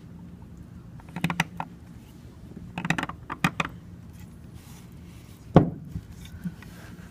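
Steel seal-carving knife cutting into a stone seal: short runs of crisp scraping clicks as the blade chips the stone, twice, then one louder single click near the end.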